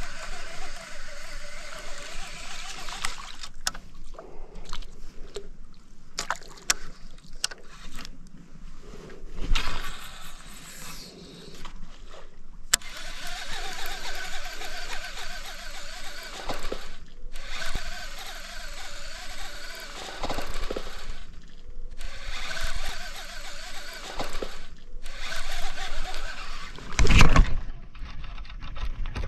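Handling noise from a baitcasting reel and rod during a retrieve, a steady noisy rustle with scattered clicks and water sounds. A louder thump comes near the end.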